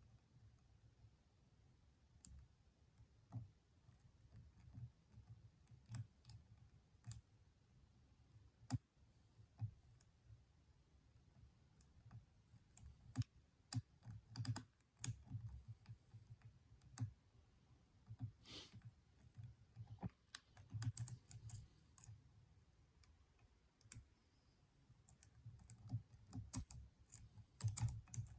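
Faint, irregular small metallic clicks and ticks of a lock pick and tension wrench working the pins inside a Stanley padlock, with a short scrape about eighteen seconds in and denser clicking near the end.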